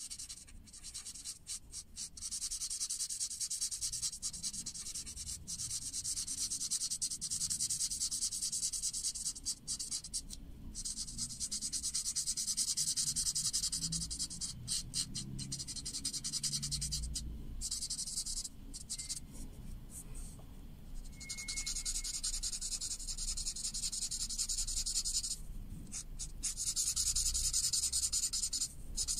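Art marker nib rubbing back and forth on paper while colouring in a solid area: a scratchy hiss, broken by several short pauses where the pen lifts.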